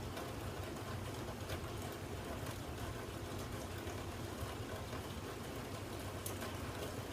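Steady background hiss with a low electrical hum, broken by a few faint light clicks.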